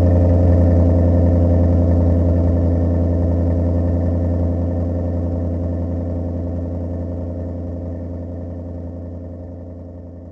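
A loud, steady, low droning hum at one unchanging pitch, slowly fading out.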